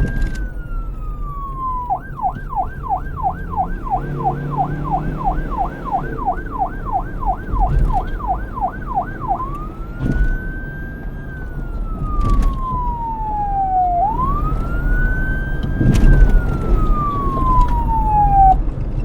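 Police car electronic siren: a slow wail rising and falling, switching to a fast yelp of about three cycles a second, then back to slow wails, over a low rumble.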